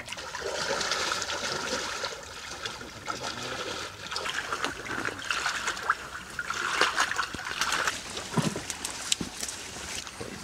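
Shallow water splashing and sloshing around people wading through a flooded pen, with many small splashes and drips coming irregularly.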